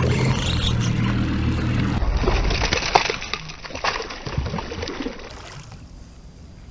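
A spinning reel is cranked fast with a steady whir for about two seconds. Then a hooked snook thrashes and splashes at the surface beside the kayak, the splashing fading toward the end.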